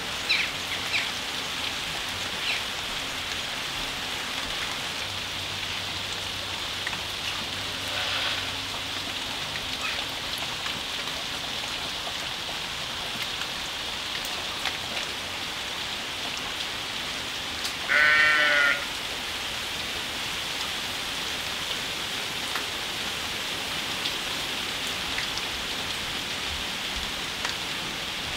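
Steady rain falling on garden plants and leaves, an even hiss. About two-thirds of the way through, one short, wavering call stands out as the loudest sound, with a fainter call earlier.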